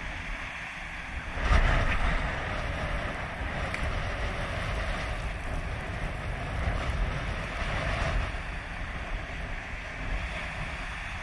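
Sea waves breaking and washing up a shingle beach, with wind rumbling on the microphone. The noise surges loudest about a second and a half in and swells again near the end.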